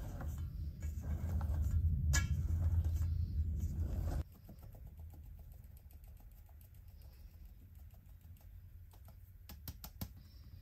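A silicone spatula scrapes cake batter around a stainless steel bowl over a low rumble, cut off suddenly about four seconds in. Then a fine mesh sieve is shaken over the bowl to sift flour, making rapid light ticking, with a few sharper taps of the sieve near the end.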